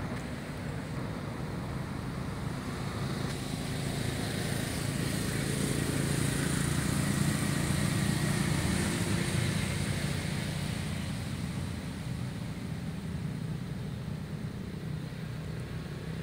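A motor vehicle's engine running steadily, growing louder toward the middle and then fading as it passes.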